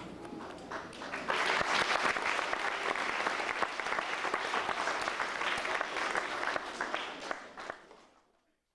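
A small audience clapping. It swells about a second in, holds steady, then dies away and cuts off abruptly near the end.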